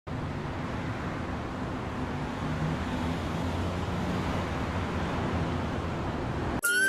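Steady street traffic noise: a low, even rumble of passing vehicles. It cuts off abruptly near the end as flute music begins.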